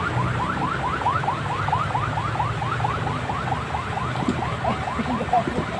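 Electronic car alarm siren in its rapid chirping mode: a steady string of short rising chirps, about six a second.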